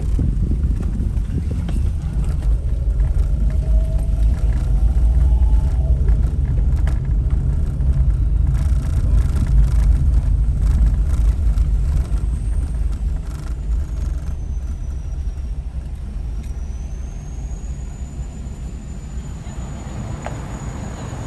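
Car driving along a road, heard from inside the cabin: a steady low rumble of engine and tyres, easing off somewhat in the second half.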